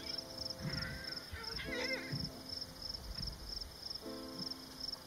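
Steady, regularly pulsing high insect chirping, cricket-like, with soft sustained music notes coming in three times and some warbling whistled glides.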